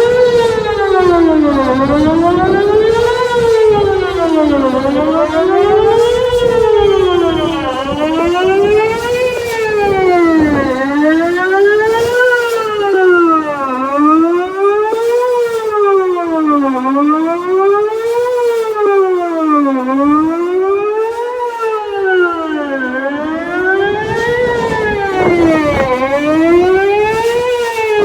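Whelen WPS-2810 electronic outdoor warning siren sounding a test wail, its pitch sweeping evenly up and down about every three seconds without a break.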